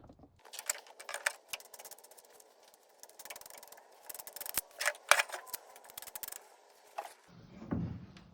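Rapid mechanical clicking and scraping with a few louder clacks, then a low thud near the end.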